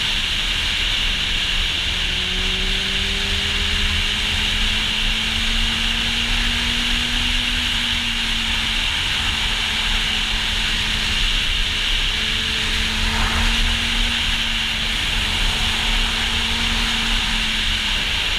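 Kawasaki Z800e inline-four with an Akrapovic exhaust running at moderate revs while riding. The engine note slowly climbs and eases a few times. Heavy, steady wind noise rushes over the helmet-mounted microphone on top of it.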